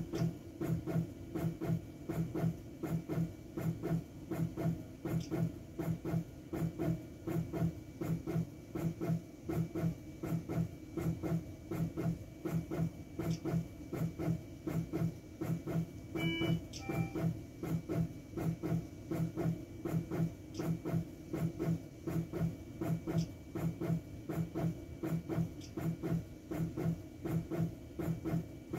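Teleflex Arrow intra-aortic balloon pump running, its drive pulsing in a steady even rhythm of more than one stroke a second as it inflates and deflates the balloon with each beat. About halfway through, the console gives two short beeps.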